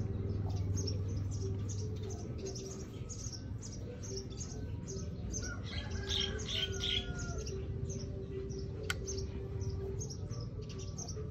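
Small birds chirping in short high notes about twice a second, with a louder cluster of chirps about six seconds in, over a steady low hum.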